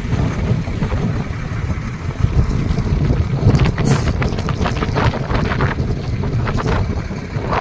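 Wind buffeting the microphone, a steady low rumble, with a run of short scrapes and knocks from about three and a half seconds in to near the end.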